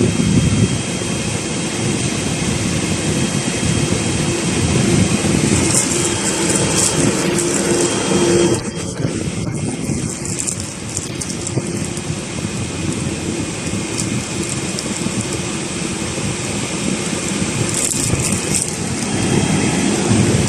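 12-volt parking air conditioner running in strong cooling mode, its fan blowing on the third speed and the compressor under full load: a steady whooshing hum with faint steady tones. One low tone stops about eight and a half seconds in.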